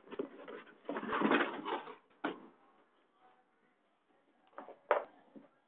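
Rustling and knocking as pans are lifted out of their box by hand: a brief burst of rustling about a second in, then a couple of sharp knocks.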